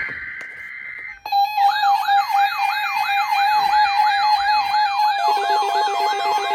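Electronic siren-like alert tone: a pitch sweeping up and down about three times a second over steady tones, starting suddenly about a second in after a fading steady high tone. A lower pulsing buzz joins near the end.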